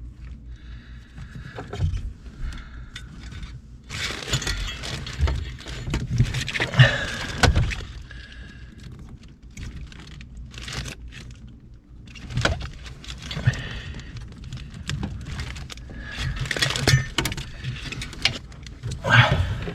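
Hands working a wiring harness plug loose under a car's dashboard: irregular clicks, rattles and scrapes of plastic connector and metal parts, with busier stretches of fiddling.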